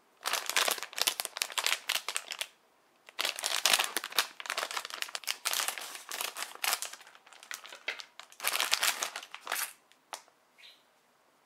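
Crinkly plastic candy-kit wrapper crackling as it is handled and opened, in three long bouts, with a single sharp click near the end.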